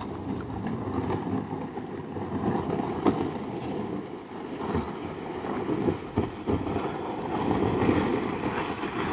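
Kayak hull dragged over sand and gravel: an uneven scraping hiss with a few short knocks.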